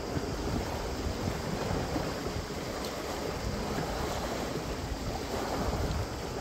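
Wind buffeting the microphone: a steady, uneven rumbling rush with no distinct events.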